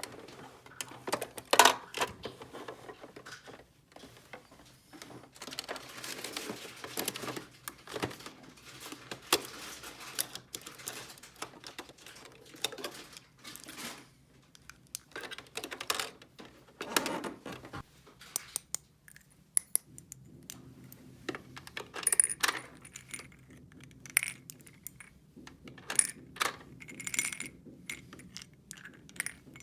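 Small plastic toy pieces handled by hand: irregular clicks, knocks and clinks as parts are set down, fitted and moved about.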